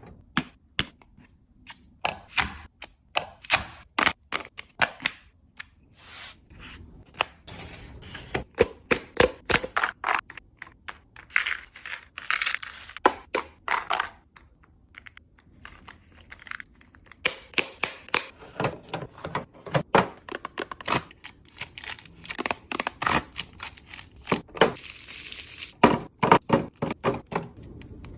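Containers, bottles and packages being handled and set down while a fridge is restocked: a dense, irregular run of small clicks, knocks and taps, with two brief rustling or scraping stretches.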